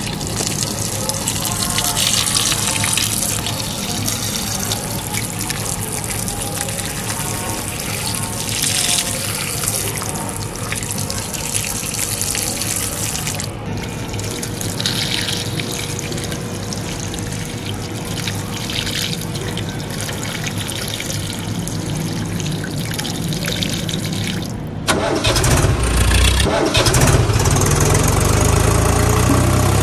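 Water jetting from a hose onto a mud-caked toy tractor: a steady hiss and splash. About 25 seconds in it cuts to a louder, low tractor-engine rumble as a toy tractor drives through mud.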